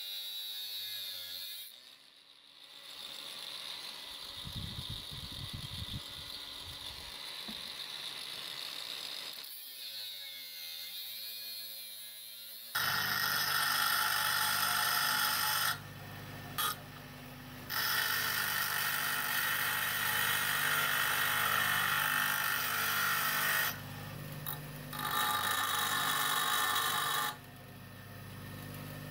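An angle grinder cutting through a bar of tool steel, its motor speed sinking and rising as it works. About halfway through, a louder, steady bench grinder takes over, grinding the tool-steel bit down to width on its wheel, in several stretches with abrupt stops and starts.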